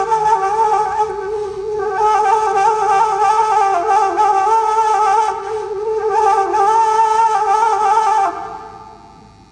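Bamboo flute playing a slow, ornamented melody in long held notes that waver in pitch, with two short breaks for breath; the last note fades away near the end.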